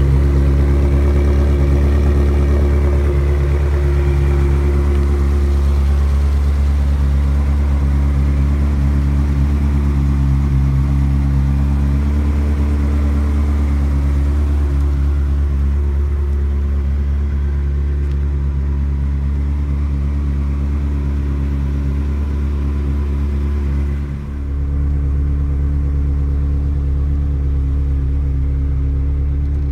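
Ferrari 360 Modena's 3.6-litre V8 engine idling steadily.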